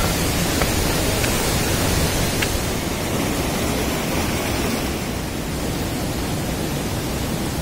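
Kempty Falls waterfall rushing and splashing over rocks, a steady loud wash of falling water that turns a little duller about three seconds in.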